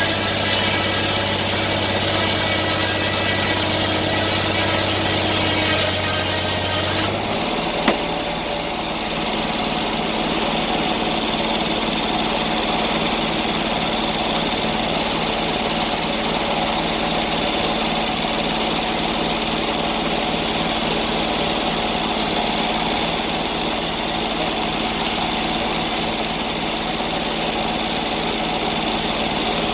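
Sawmill engine running steadily while milling a pine log; about seven seconds in its tone shifts, the low hum dropping away, and a single sharp knock follows.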